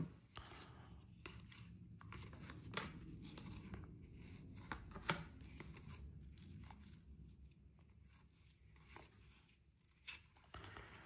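Topps baseball cards being slid and flicked one by one through a hand-held stack: faint rustling with scattered light clicks and taps, the sharpest about five seconds in.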